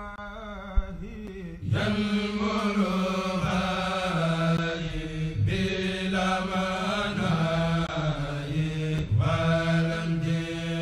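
Intro music: a drawn-out chanted vocal line over a steady low drone, growing louder about two seconds in.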